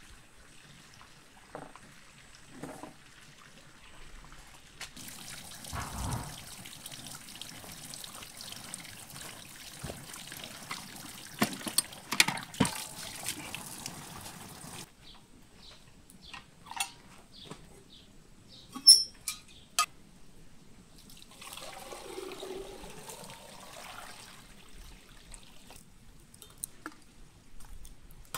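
Water pouring steadily from a wooden spring spout and splashing, cutting off suddenly about halfway through. Then a few sharp clinks and knocks, and a shorter stretch of water being poured.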